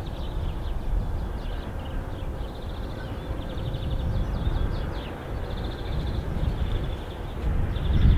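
Low, steady rumble of a distant container freight train approaching, with small birds chirping in short repeated trills over it.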